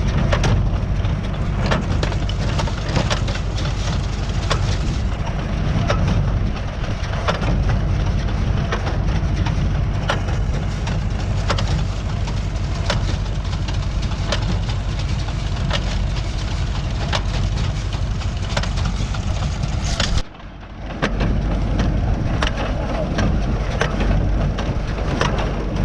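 Tractor engine running under load while a New Holland 68 square baler works behind it, with sharp knocks repeating through the steady rumble as the baler packs hay. The sound breaks off briefly about three-quarters of the way through, then resumes.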